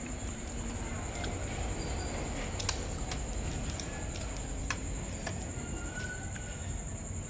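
A metal spoon clicks sharply against a ceramic bowl a few times while scooping food, over a steady low rumble of background noise.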